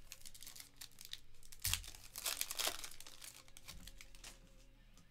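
A trading-card pack wrapper being torn open and crinkled by hand: a run of crackling tears, loudest a little before the middle and thinning out near the end.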